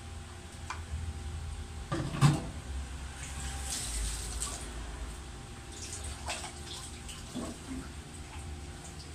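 Tap water running into a stainless steel sink as raw fish pieces are rinsed in a plastic bowl. A loud knock about two seconds in, with a few smaller clunks later.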